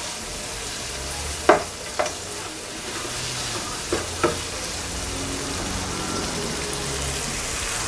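Bell peppers and onions sizzling steadily in a skillet of hot olive oil and butter while being stirred, with four sharp knocks of the utensil against the pan in two pairs.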